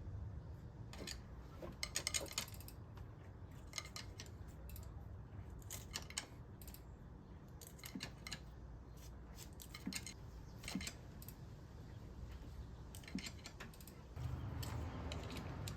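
Small metal tools and fittings clicking and clinking, scattered irregularly, over a steady low hum that gets louder near the end.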